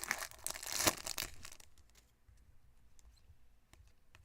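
Foil trading card pack wrappers crinkling and tearing for about the first second and a half, then a few faint clicks of cards being handled.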